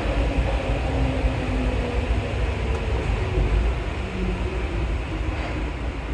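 Rubber-tyred MP14 Paris metro train running, a steady low rumble with a faint motor whine that drifts lower in pitch.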